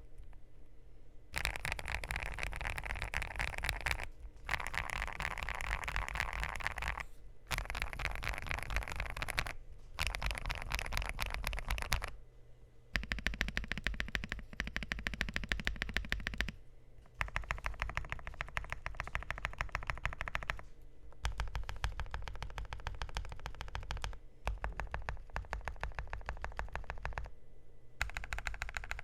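Fast typing on a Hexgears M2 mechanical keyboard with lubed, filmed Kailh fence linear switches and PBT keycaps: rapid key clicks in runs of a few seconds, broken by brief pauses.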